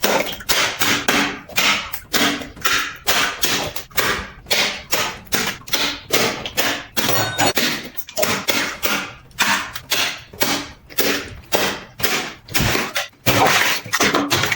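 Rapid, evenly spaced sharp percussive hits, about three a second.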